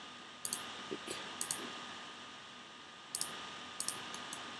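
Computer mouse clicking, several scattered clicks, some in quick pairs, over a faint steady hiss.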